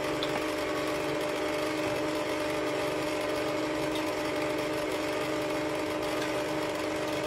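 Electric mixer running steadily, beating cake batter as dry ingredients are added, with an even motor hum.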